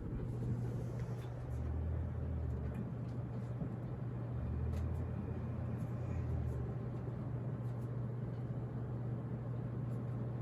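Casablanca Delta II ceiling fan running steadily at speed 5, the top setting of its five-speed click knob, with a constant low motor hum.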